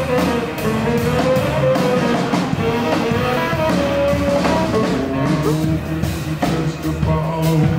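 Band music with a steady drum beat and a melodic lead line.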